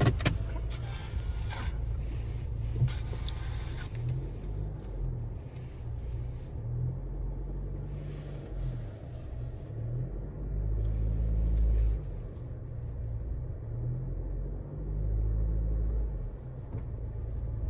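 Low rumble of a pickup truck's engine and cabin heard from inside, with a few sharp clicks near the start. The rumble swells twice in the second half.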